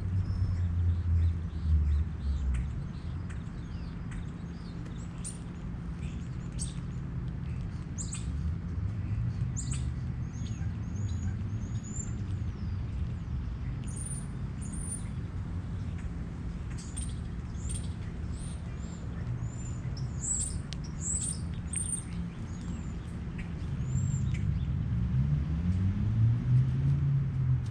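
Small songbirds chirping in short, high, thin calls and brief whistles, thickest in the middle of the stretch, over a steady low engine rumble that grows louder and rises in pitch near the end.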